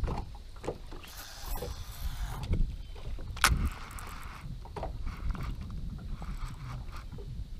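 Small waves lapping against a fishing boat's bow, with wind on the microphone, broken by a few clicks and knocks from handling the rod and baitcasting reel; the sharpest click comes about three and a half seconds in.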